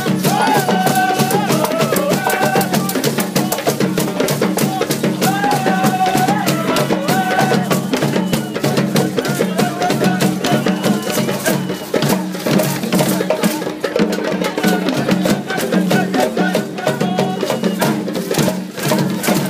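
Live drumming for a traditional Balanta dance: hand drums beaten in a fast, dense rhythm with rattles, and short high calls rising over it a few times.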